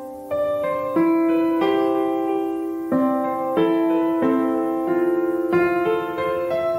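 Background music: a slow piano piece, notes and chords struck about once a second and left to ring out.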